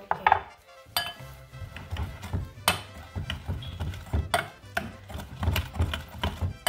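Metal potato masher knocking and clinking irregularly against a glass mixing bowl as it stirs a liquid marinade, over background music.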